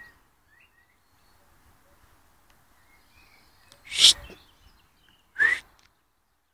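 Fox terrier giving two short, sharp bark-like huffs about a second and a half apart, the second with a brief rising yelp in it. Faint bird chirps in the background.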